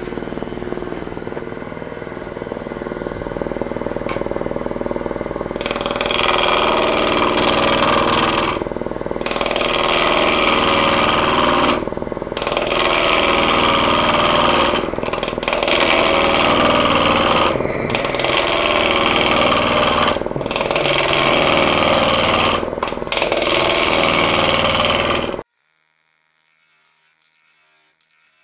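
Wood lathe running, then a bowl gouge cutting into a spinning green-wood blank in a series of passes, each a few seconds long with brief breaks. The sound cuts off suddenly near the end.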